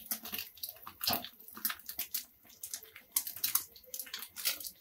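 Egg frying in oil on a hot tawa, sizzling with irregular crackles and pops.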